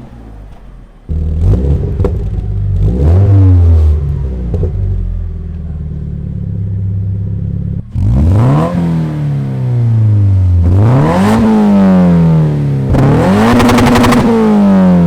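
Toyota GT86's flat-four engine revving through its exhaust. It idles with a couple of short throttle blips; then, after a cut, it is revved three times, each rev climbing quickly and falling slowly back, the last held briefly at the top.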